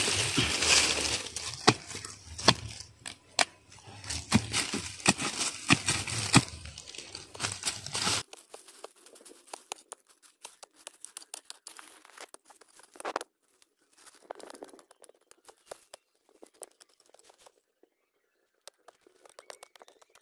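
Hand digging tool chopping and scraping into root-filled soil around a shrub's base, with dry stems and leaf litter crackling and tearing. Sharp strikes come thick and fast at first, then become sparser and fainter after about eight seconds.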